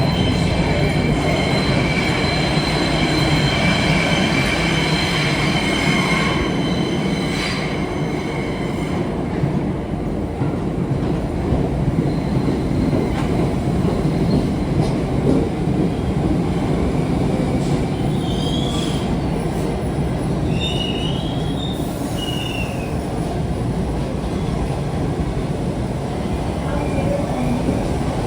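New York City subway train running through the station, a steady low rumble with a high thin whine over it in the first few seconds. Steel wheels squeal in short high bursts on curved track about two-thirds of the way through.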